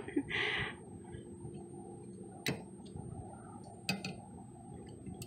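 A short rustle, then sharp plastic clicks as a windshield wiper blade and its clip are worked on the wiper arm. Two louder clicks come about two and a half and four seconds in, with a few fainter ticks between them.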